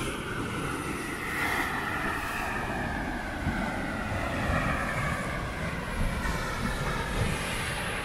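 Sea surf washing and breaking against rocks, with wind buffeting the microphone. Over it a passing engine drones, its pitch slowly falling for a few seconds.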